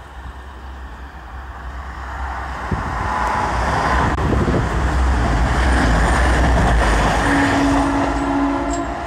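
Class 222 Meridian diesel multiple unit passing close by, its underfloor diesel engines and wheels on the rails making a heavy rumble. The sound builds over the first few seconds, is loudest in the middle, and begins to fade near the end as the train moves away.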